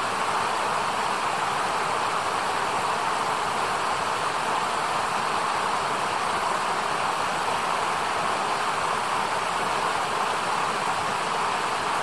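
Shallow mountain river rushing over rocks: a steady, even rush of water.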